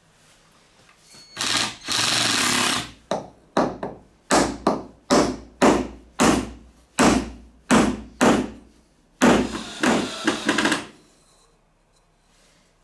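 Cordless impact driver driving a bolt into a plywood wheel. It runs steadily for about a second and a half, then in a string of short trigger bursts about twice a second, then in one last longer run.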